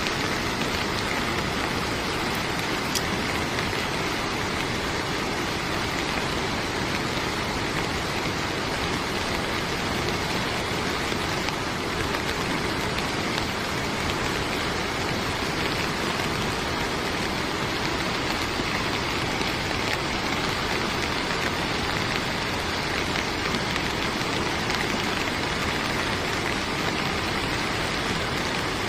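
Waterfall of floodwater from heavy rain pouring down a ravine: a steady, unbroken rush of water.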